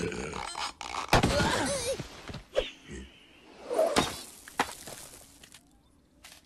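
Cartoon slapstick sound effects for a lizard being flung from a slingshot: a loud snap about a second in followed by wavering, whooshing sounds, then a thud about four seconds in as he hits the sand, and a sharp click just after.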